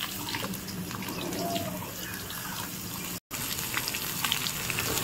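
Cut potato and eggplant pieces sizzling as they fry in hot mustard oil in an iron kadai: a steady hiss with many small spitting crackles, broken by a brief dropout a little after three seconds.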